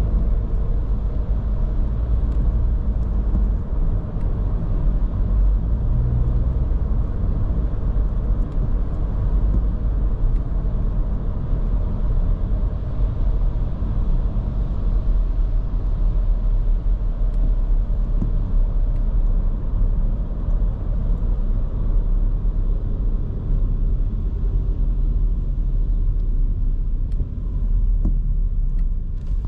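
Steady low road rumble and engine noise of a Škoda Kamiq's 1.0 TSI turbocharged three-cylinder petrol engine driving in town, heard from the driver's position.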